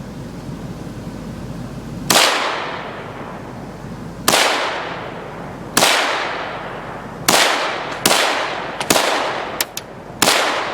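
Ruger Mini-14 semi-automatic rifle firing seven single shots at an uneven pace, starting about two seconds in, each crack followed by a long rolling echo.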